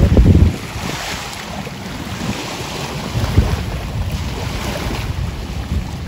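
Wake waves from a large passing ferry washing up over flat shore rocks, with wind buffeting the microphone. A loud rush comes in the first half second, then a steady wash of water and wind.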